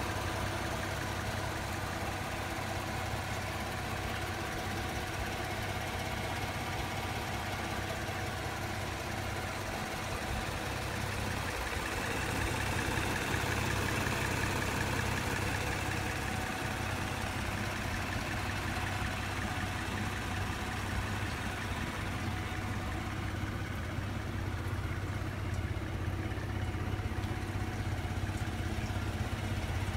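Morgan Roadster's 3.7-litre V6 engine idling steadily.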